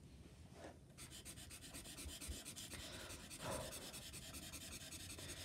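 Pastel pencil scratching on sketch paper in rapid, short shading strokes, faint, starting about a second in.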